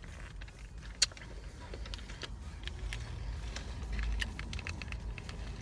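Close-up eating of peanuts in Pepsi: one sharp click about a second in, then a run of small crunching clicks and mouth smacks from chewing, over a steady low rumble.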